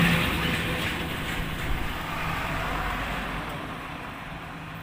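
A motor vehicle's engine running close by, with a steady hum, fading away as it moves off.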